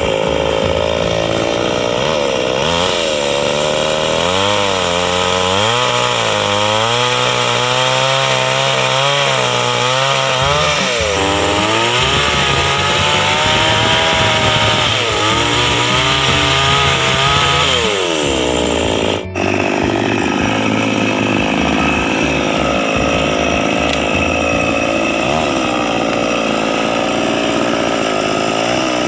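Chainsaw engine running while cutting wood, its pitch dipping and rising again and again as the chain takes load. About two-thirds through it breaks off for an instant, then runs on more evenly.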